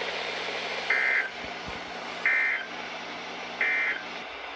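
Emergency Alert System SAME end-of-message code on NOAA Weather Radio: three short, identical bursts of warbling two-tone digital data, about a second apart, closing the weekly test. Under them is steady radio hiss with a low hum that cuts off near the end.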